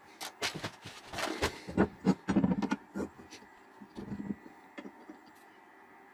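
Metal parts and tools handled and set down on a wooden workbench: a quick run of knocks and clatter over the first three seconds, then a few lighter knocks.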